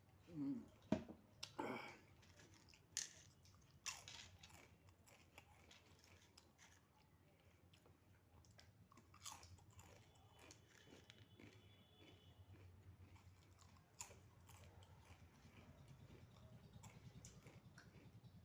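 Crisp potato chips being bitten and chewed close to the microphone: a quick run of loud crunches at the start, single sharp crunches a few seconds apart, and softer chewing in between.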